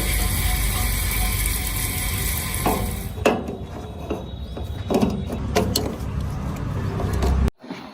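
JCB 3DX backhoe loader's diesel engine running steadily with a low rumble, then several sharp knocks and clanks from about three seconds in as the machine works. The sound cuts off abruptly near the end.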